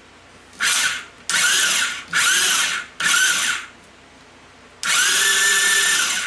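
The ATV's electric starter motor whines in five short cranking bursts, the last one the longest. Each burst rises in pitch as the starter spins up. The engine does not fire, so the hot-wired ignition connection has not worked.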